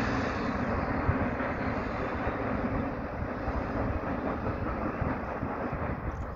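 Passenger train running across a girder viaduct, a steady rail rumble that slowly fades as the train moves away.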